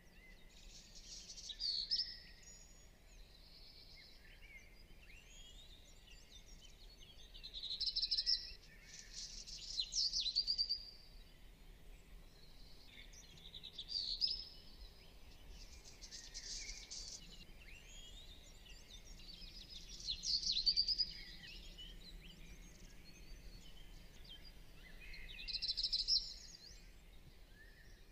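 A songbird singing loud phrases of rapid high trills and whistles, about six of them a few seconds apart, over a faint steady background hum.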